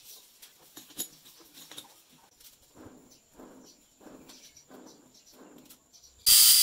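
Soft, faint scuffing pulses repeating about every two-thirds of a second as a four-jaw lathe chuck is turned slowly by hand to true a shaft against a dial indicator. Near the end a loud, steady hissing machine noise cuts in suddenly.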